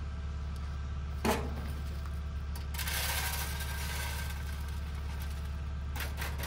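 Rabbit feed pellets poured from a plastic scoop into a feed bowl: a rattling rush about three seconds in, with a single knock before it and a few quick clicks near the end. A steady low hum runs underneath.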